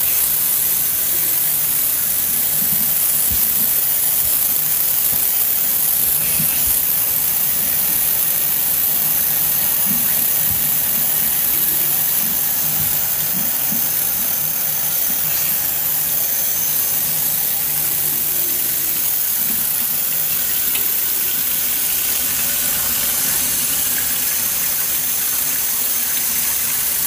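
Bathroom sink faucet running cold water, splashing over hair and into the basin as texturizer is rinsed out: a steady rushing hiss.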